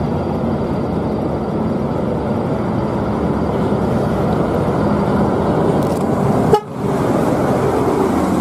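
Large intercity coach bus driving up and passing close by: steady engine and road noise. It breaks off briefly with a click about six and a half seconds in, then continues.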